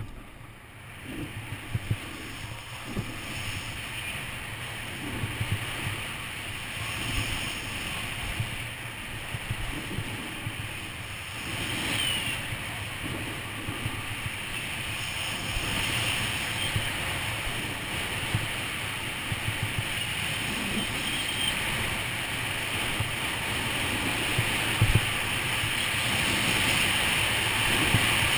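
Snowboard sliding down groomed corduroy snow: a steady rushing hiss of the board on the snow mixed with wind on a helmet-mounted microphone, growing louder as speed builds, with a few sharp knocks along the way.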